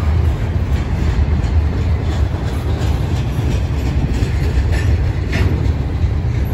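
Canadian Pacific double-stack intermodal freight train rolling past: a steady low rumble of the container well cars with wheel clatter over the rail joints, and a short sharp metallic squeal about five seconds in.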